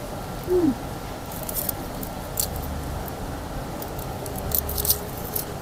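Aluminium foil wrapper of a chocolate bar crinkling in short, scattered crackles as it is handled and peeled back while the chocolate is eaten. A short low hum falling in pitch about half a second in.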